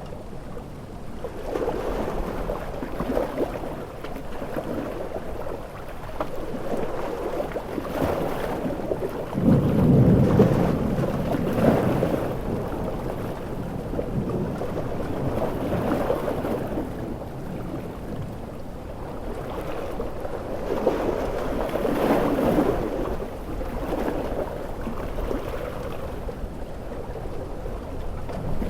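Large ocean waves surging and breaking under heavy rain, swelling and easing every few seconds, with a loud low surge about ten seconds in.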